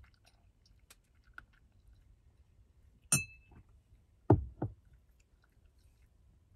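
A cat crunches dry food faintly from a ceramic bowl. A glass beer bottle is set down on the wooden counter beside it: a sharp ringing clink about three seconds in, then two dull knocks just over a second later.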